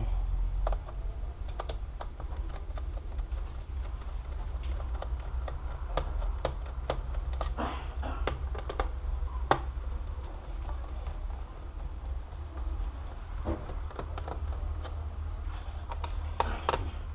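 Phillips screwdriver backing out the screws on the bottom case of an HP laptop: irregular small clicks and ticks of metal on plastic, over a steady low hum.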